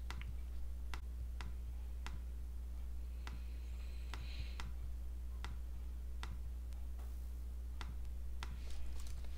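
Computer mouse clicking again and again, about two clicks a second at uneven spacing, over a steady low hum.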